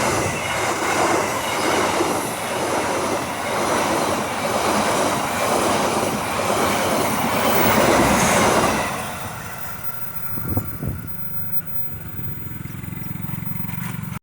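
Passenger train coaches passing close by, the wheels clattering in an even repeating rhythm as each car goes past. About nine seconds in the passing ends and the sound falls away, with one short knock a little later and a fainter steady low rumble after it.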